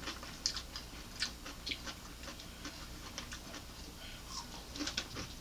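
Chewing raw cucumber spears: a run of small, crisp crunches and clicks at irregular intervals.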